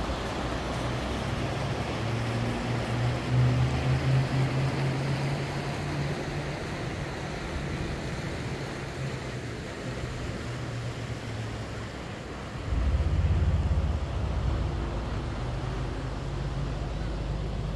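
Rushing water of the Youghiogheny River, a steady wash that fades gradually, with wind buffeting the microphone in low rumbling gusts, a strong one starting about two-thirds of the way in.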